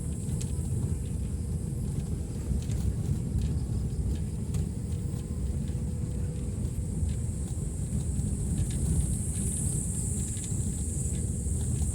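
Motorbike riding along a rural road: steady low engine and wind rumble, with a steady high insect drone that grows louder near the end.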